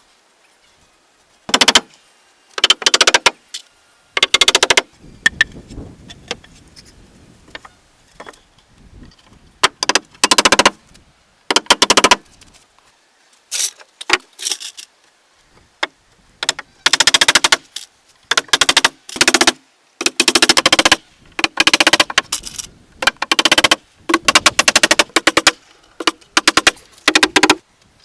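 A power tool run in short bursts of rapid mechanical rattling, a dozen or more bursts coming irregularly with pauses between, each lasting under a second to about a second.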